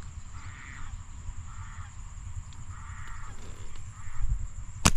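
Harsh, caw-like bird calls repeating about every half second. Just before the end comes a single sharp snap as a rubber-band slingshot is released for a shot.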